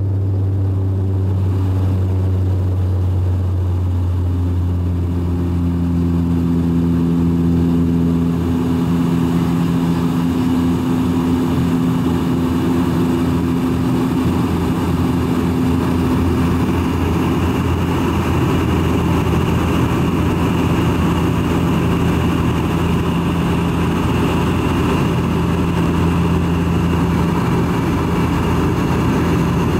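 Cabin noise of a De Havilland Dash 8 Q400 turboprop climbing after takeoff: a steady propeller drone with a deep hum and a few held tones above it, the deepest hum easing about eight seconds in.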